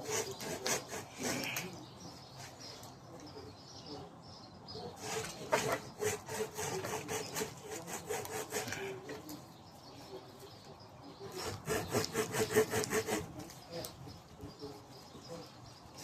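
A blade sawing back and forth into birch bark in quick, rasping strokes, cutting down through the papery outer layers to the inner bark. The sawing comes in three bouts: at the start, around the middle, and again near the end.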